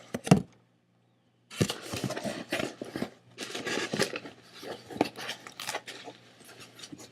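Packaging being handled during unboxing: paper and plastic wrapping rustling and crinkling with many small sharp crackles. There is a sharp click just after the start, then the sound cuts out entirely for about a second before the rustling resumes.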